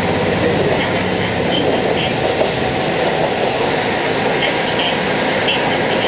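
Interior running sound of a JR Hokkaido KiHa 40 diesel railcar: its N-DMF13HZI diesel engine running steadily, mixed with the rolling noise of the wheels on the rails.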